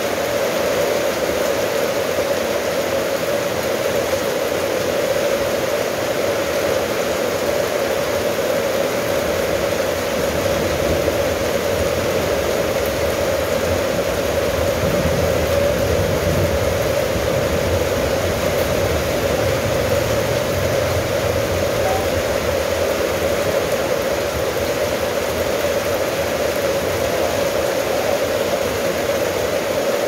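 Steady rain falling on corrugated-metal roofing and wet brick paving, an even unbroken hiss. A low rumble swells and fades in the middle.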